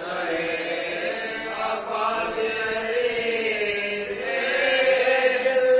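Group of men chanting an Urdu marsiya, a mourning elegy, together without instruments, in long drawn-out held notes that bend slowly in pitch; the chant swells a little louder near the end.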